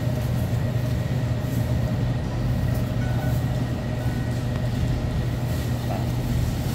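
Steady low hum and rumble of supermarket background noise, such as refrigerated cases and air handling, with a couple of faint short beeps about three and four seconds in.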